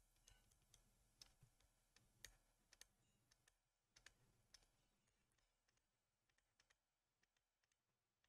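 Near silence with faint, scattered sharp clicks through the first half or so, then almost nothing.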